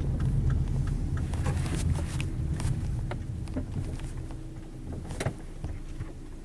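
Car cabin noise: low engine and road rumble that gradually dies away, with a few faint clicks.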